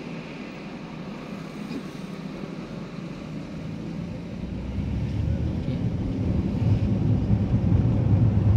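Car engine and road rumble heard from inside the cabin while driving, growing louder from about halfway through.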